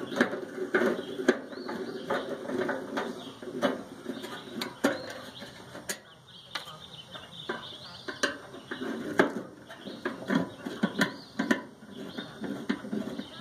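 Irregular clanks, clicks and knocks of hand tools and sheet-metal parts being handled while a microwave oven is taken apart to remove its magnetron.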